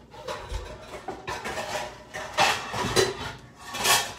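Pots and pans being rummaged through and a frying pan pulled out, cookware scraping and clattering in a series of noisy bursts, loudest in the second half.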